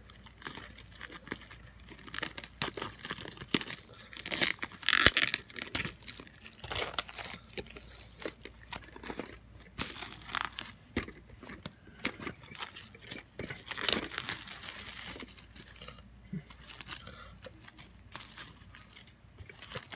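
Clear plastic shrink wrap being torn open and crinkled off a sealed VHS tape case, in uneven bursts of ripping and crackling, loudest about five seconds in and again near fourteen seconds.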